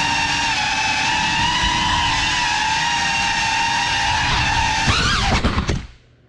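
Cinelog 35 6S cinewhoop FPV drone's motors and ducted propellers whining steadily. About five seconds in, the pitch swings sharply up and down, a few sharp knocks follow, and the motor sound cuts out: the drone has crashed into furniture.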